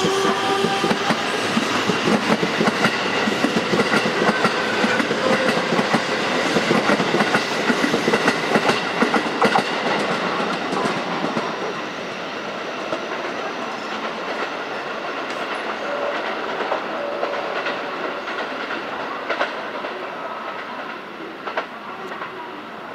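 Electric train running along the rails at a station, its wheels clattering rapidly over the rail joints for about the first ten seconds, then growing quieter and fading away.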